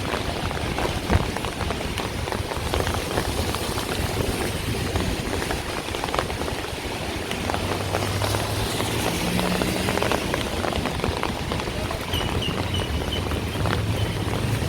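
Rain falling in many fine drops, over a steady low hum of road traffic. Near the end there is a short run of high chirps.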